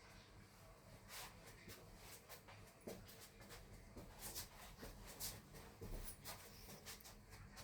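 Near silence with faint, irregular clicks and rustles.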